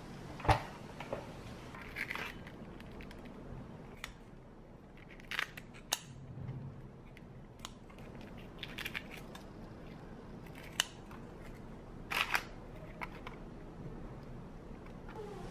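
Kitchen scissors snipping through an air-fried chicken leg, with metal tongs clicking as the pieces are moved: a scattered series of short sharp snips and clicks, the loudest about half a second in.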